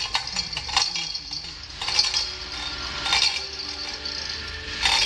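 Steel hoist chain rattling and clinking in several short bursts, with light metal knocks, as a camshaft in its lifting tool is handled on the chain. The loudest burst comes near the end.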